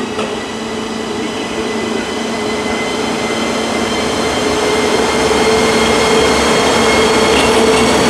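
Electric locomotive E10 1239 moving slowly on the rails with a steady electric hum and whining tones over the rumble of wheels, getting steadily louder as it comes closer.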